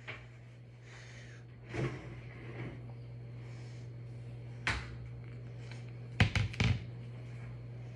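Knocks and clacks of a kitchen cupboard and a plastic colander being taken out and handled. Single knocks come about two seconds in and just before five seconds, and the loudest, a quick run of sharp clacks, comes about six seconds in. A steady low hum runs underneath.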